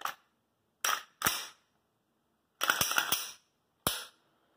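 Sharp metallic clicks and clacks of a Glock pistol's slide and frame being handled and fitted together: one click at the start, two clacks about a second in, a quick rattling run of clacks in the second half and a last clack near the end. It is the sound of the slide being swapped between a Glock 48 and a Glock 43.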